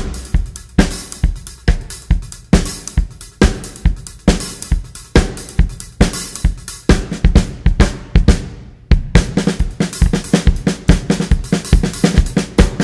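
Drum kit playing a steady groove in an instrumental track, with heavy bass-drum hits, snare and hi-hat. The beat thins out briefly about two-thirds of the way through, then returns as a busier pattern.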